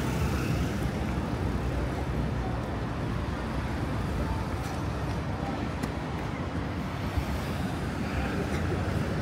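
Steady hum of road traffic, cars passing, with faint voices of passers-by.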